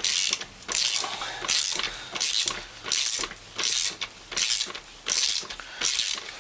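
Socket ratchet on a short extension, swung back and forth to tighten a 12 mm bolt: a burst of pawl clicks on each back-stroke, about every three-quarters of a second.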